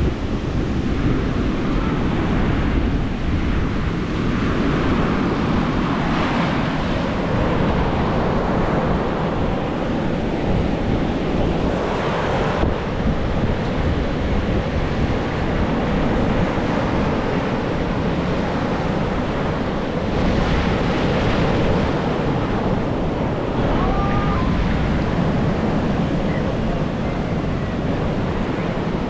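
Ocean surf washing onto a sandy beach, with wind buffeting the microphone in a steady low rumble.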